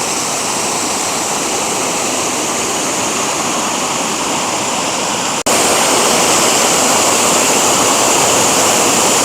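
Waterfall and river water rushing, a loud steady hiss, cut off for an instant about five and a half seconds in and a little louder after.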